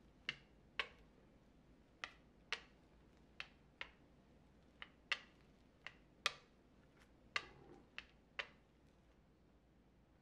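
Rolling pin clicking and knocking against the worktop as bagel dough is rolled out, about a dozen short, sharp clacks at uneven intervals, one or two a second.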